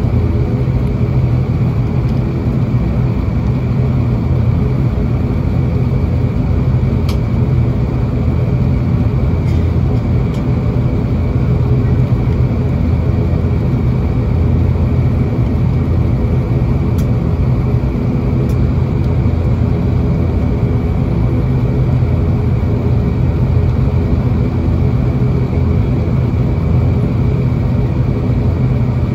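Turboprop engines and propellers of an ATR 72-600 droning steadily while the aircraft taxis, heard inside the passenger cabin: a low propeller hum with a steady high whine above it.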